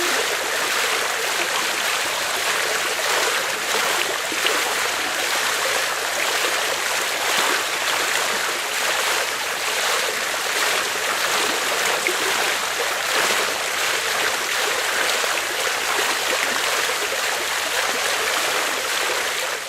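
Medium-sized water fountain running steadily, its falling water splashing into the basin in an even rushing hiss.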